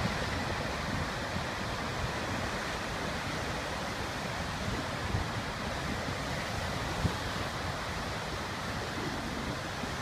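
Rough-sea surf breaking and foaming over a rocky shore, a steady wash of wave noise, with wind rumbling on the microphone.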